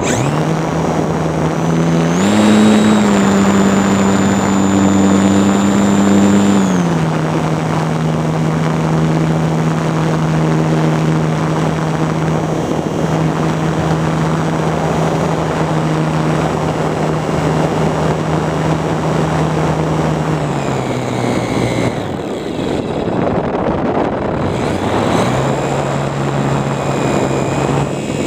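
RC model airplane's motor and propeller running at a steady pitch with a faint high whine, over a rush of wind. The pitch steps up about two seconds in and back down a few seconds later, as the throttle is changed. It dips again late on, then climbs once more near the end.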